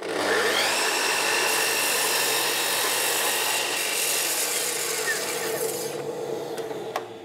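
Festool Kapex sliding compound mitre saw spinning up with a rising whine, then its blade cutting across a piece of wood. The cutting noise stops about six seconds in and the motor begins to run down near the end.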